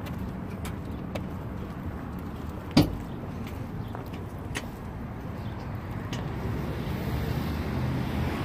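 Steady road-traffic rumble from cars, with light scattered ticks and a single sharp knock about three seconds in.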